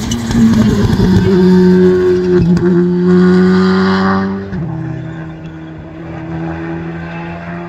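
Rally car passing at speed with the engine held high at full throttle. About four and a half seconds in, its note drops suddenly in pitch and level as it goes by and pulls away.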